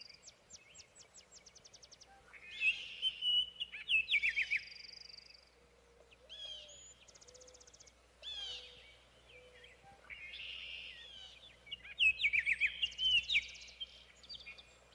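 Several songbirds singing and calling: rapid trills, chirps and downslurred whistles. The singing comes in bursts and is loudest about three seconds in and again near the end.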